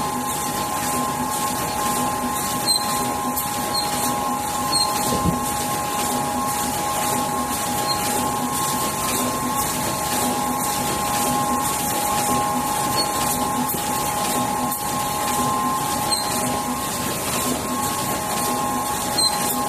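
Automatic multi-colour UV tube screen printing machine running: a steady mechanical whine with two held tones, a low hum that pulses about twice a second, and scattered light clicks.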